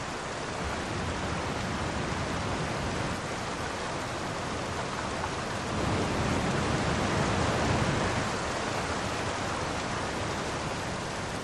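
Heavy typhoon rain pouring down: a steady, dense hiss that swells a little in the middle.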